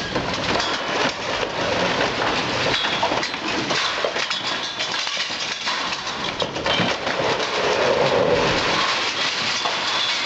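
Masonry and debris clattering and crashing down as an excavator pulls down the top of an old building's front wall, with many sharp knocks and cracks over a continuous rumble of falling rubble.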